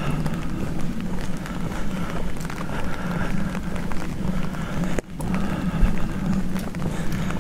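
Footsteps on pavement over a steady low hum of street traffic, with a brief sudden dip in the sound about five seconds in.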